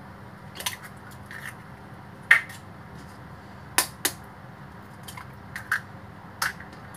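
Eggs being tapped and cracked open over a ceramic bowl: a handful of short, sharp clicks and cracks of shell, the loudest about two seconds in, over a low steady hiss.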